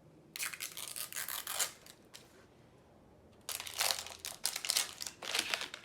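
Plastic packaging being torn and crinkled open by hand, in two bouts of rustling with a pause between.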